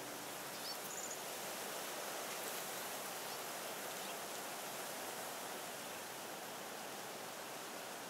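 Steady, even hiss of outdoor lakeside ambience, with a couple of faint high chirps about a second in.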